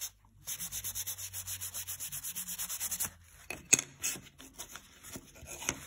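Paper towel rubbing quickly back and forth over a laser-etched brickwork panel, wiping off a grey paint wash, at about eight strokes a second. The rubbing stops about three seconds in, and a few light taps follow.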